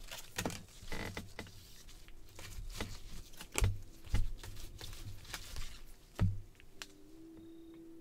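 Gloved hands handling freshly opened trading cards and a foil pack wrapper: quick clicks and rustles of cards sliding and flicking, with a few dull thumps as they are tapped or set down on the table. The handling thins out in the last second or so.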